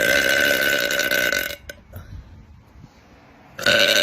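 A woman's long, loud burps held on one pitch: the first lasts about a second and a half, and a second one begins shortly before the end.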